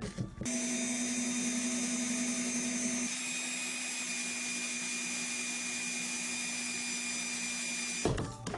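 A power tool's electric motor running at a steady speed with a steady whine, starting abruptly about half a second in and cutting off abruptly near the end.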